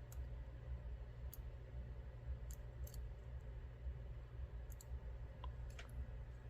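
Faint, scattered metallic clicks of small lock parts being worked with tools as the sliders are removed from a Mul-T-Lock MT5+ plug.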